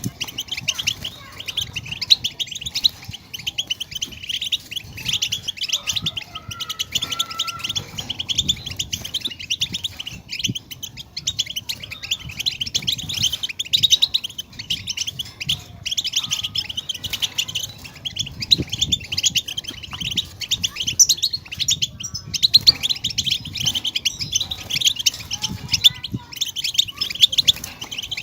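European goldfinch song: a fast, unbroken twittering of chirps and trills.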